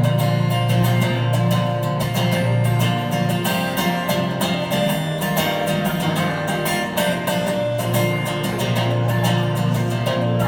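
Acoustic guitar strummed in a steady rhythm, an instrumental break between verses of a country song.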